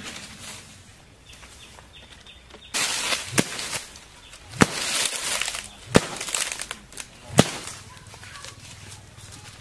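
A wooden stick whacking down hard four times, about a second and a half apart, with grass rustling around the first blows.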